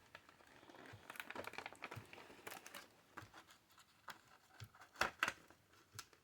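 Board game pieces and packaging being handled during an unboxing: crinkling packaging with scattered light clicks and taps, the loudest two about five seconds in.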